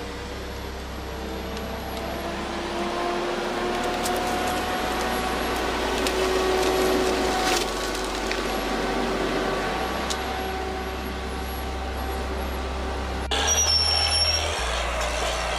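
Heavy machinery engine running steadily, with a noisy rumble and faint sustained whine. The sound changes abruptly about thirteen seconds in.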